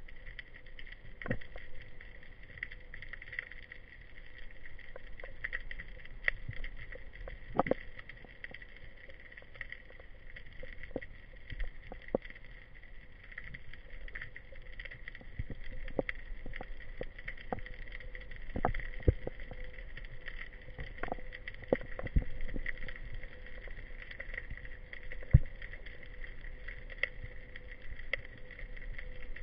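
Underwater ambience picked up by a diver's camera over a rocky reef: a steady hiss with a faint constant hum, broken by irregular short clicks and knocks, about one a second, a few of them louder.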